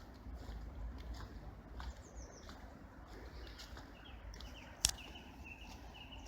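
Small birds chirping, with a run of quick repeated notes in the second half, over a steady low rumble. A single sharp click about five seconds in.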